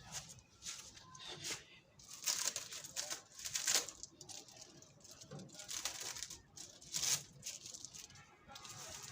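Irregular rustling and scraping handling noises, a string of uneven strokes with the loudest in the middle.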